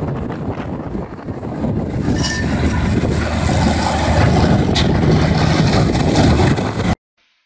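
Claas tractor's diesel engine working under load, with a rear-mounted flail mulcher shredding maize stalks. It grows louder as the rig passes close by, then cuts off suddenly near the end.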